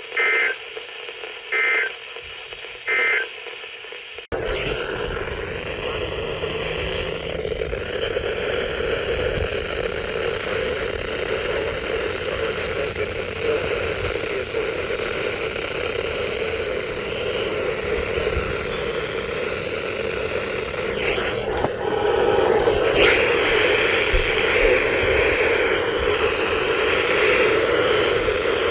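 Three short bursts of Emergency Alert System SAME data tones, a buzzy two-tone warble about a second and a half apart, sent at the end of a weather radio warning to close the alert. About four seconds in, the sound cuts abruptly to a steady hiss of radio static with a low rumble underneath.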